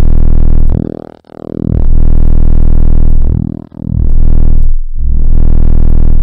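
Deep electronic drone with many overtones, loud, coming in long swells of one to two seconds, each dropping away briefly before the next.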